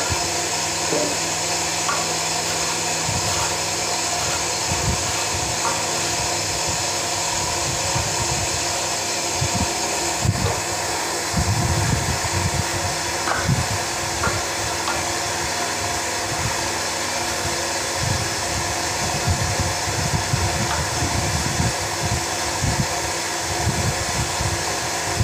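Steady whirring machine hum with several held tones, under irregular low rumbling and a few faint light clicks.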